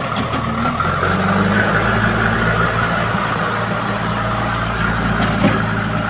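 JCB 3DX backhoe loader's four-cylinder diesel engine running steadily under load as the machine backs up across the mud.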